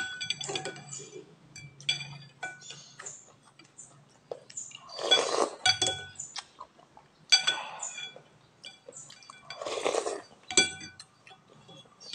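Metal spoon and fork clinking against a glass soup bowl, the strikes ringing briefly. Noisy slurps of noodle soup come about five seconds in and again near ten seconds.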